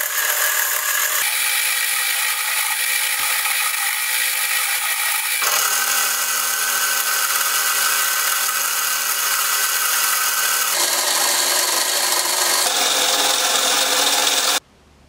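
Wood lathe running, with a turning tool cutting and then sandpaper rubbing a long thin wooden spindle: steady motor tones under a hissing scrape. The sound shifts abruptly a few times and cuts off suddenly near the end.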